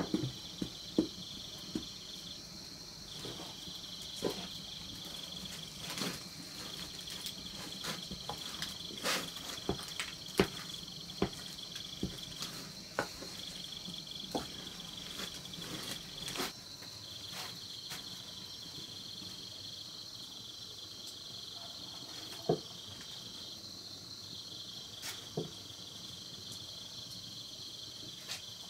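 Insects chirping in a steady high trill, with a second trill stopping and starting every few seconds. Scattered light clicks and knocks come through the first half, the loudest a sharp knock right at the start.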